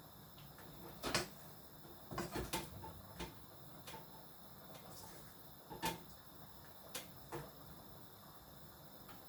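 Kitchen clatter during cooking: a scattering of about eight sharp knocks and clicks at irregular intervals. The loudest come about a second in and again just past the middle, over a faint steady background.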